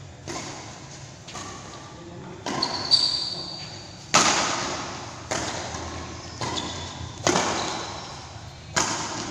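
Badminton rally: rackets striking the shuttlecock roughly once a second, each hit sharp and echoing in a large hall. A few short high squeaks come in between the hits.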